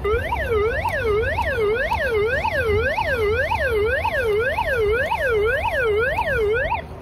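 GoPower solar hand-crank emergency flashlight's built-in SOS alarm: an electronic siren whose pitch swoops down and back up about twice a second. It cuts out briefly near the end, then starts again.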